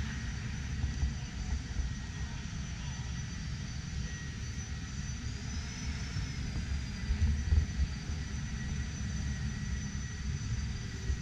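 Steady background din of a large exhibition hall: a low rumble with a few faint steady high-pitched tones over it and no clear voices.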